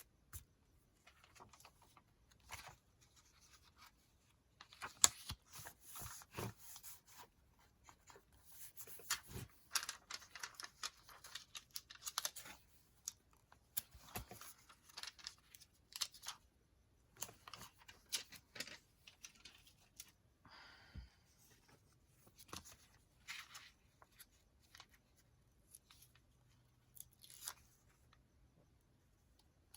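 Intermittent paper-crafting sounds at a work table: short rustles, scrapes and taps of paper being handled and worked on, in scattered bursts.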